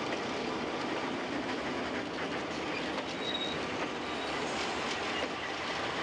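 Freight train rolling past, its wheels clicking over the rail joints, with a brief high-pitched squeal a little over three seconds in.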